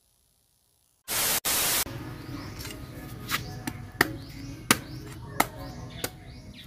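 Silent for about a second, then a brief loud burst of static hiss, then a machete blade chopping into a ripe cacao pod's thick husk to split it open: sharp knocks about every 0.7 seconds.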